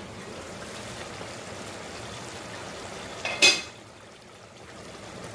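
Chicken and masala gravy simmering in a covered aluminium pot, a steady bubbling hiss. About three and a half seconds in, the metal lid clanks once with a brief ring as it is taken off.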